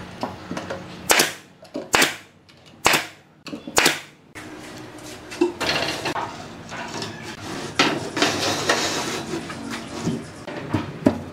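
Pneumatic nail gun firing four times, about one shot a second, driving nails through plywood formwork. Then scraping and knocking as plywood sheets are handled and shifted.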